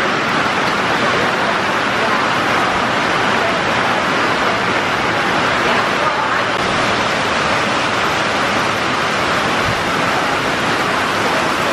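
Heavy rain pouring down in a thunderstorm: a loud, steady hiss of downpour on grass and standing water.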